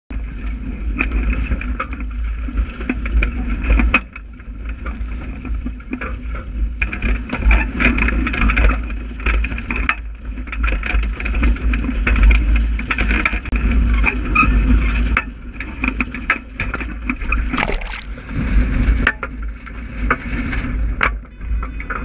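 Strong wind buffeting an action camera's microphone aboard a wooden Graduate sailing dinghy, under a steady wash of water against the hull. Many short knocks and clatters from the rigging, sail and boat are scattered throughout.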